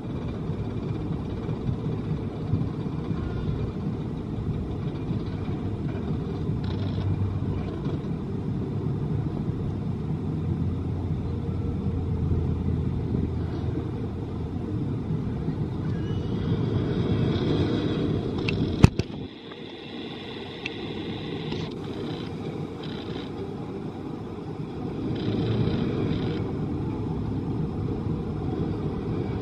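Small E&F Miler steel roller coaster's train running along its track, with a steady low rumble and one sharp click about nineteen seconds in.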